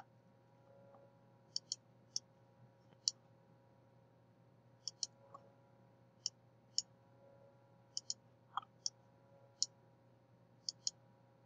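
Computer mouse clicking: a dozen or more short, sharp clicks, some in quick pairs, coming at irregular intervals. A faint steady electrical hum runs underneath.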